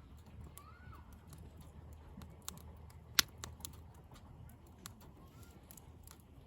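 Wood campfire crackling: irregular sharp pops and snaps from the burning wood, one much louder pop about three seconds in.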